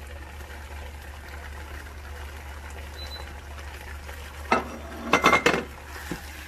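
Spatula stirring broccoli into creamy pasta in a pan, over a steady low hum. A few sharp clacks of the utensil against the pan come in a quick cluster a little after halfway.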